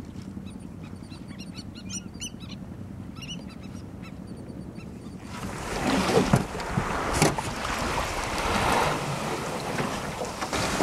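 Birds calling faintly over a low steady hum. About five seconds in the sound cuts to wind buffeting the microphone and water lapping around a wooden dugout canoe, with a few knocks.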